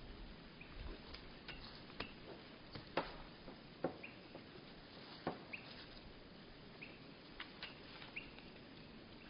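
Birds at a seed feeder heard slowed to a third of normal speed: about a dozen irregular sharp taps, the loudest about three seconds in, and about six short chirp calls at one pitch, over a steady faint hiss.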